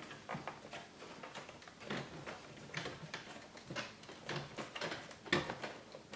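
Plastic rear housing of an HP TouchSmart 600 all-in-one PC creaking, its clips clicking as the housing is pried upward off the chassis. There is a string of small irregular clicks and creaks, with a sharper one about five seconds in.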